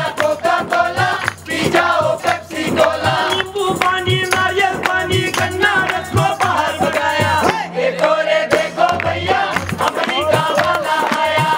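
A group singing a Hindi folk-style protest song in chorus, backed by drums and hand clapping keeping a steady beat. The percussion drops out for about a second around two-thirds of the way through, then comes back.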